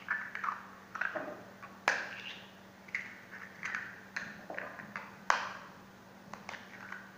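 Raw eggs being cracked open with a knife over a ceramic bowl: a string of sharp taps and shell clicks, the loudest about two and five seconds in.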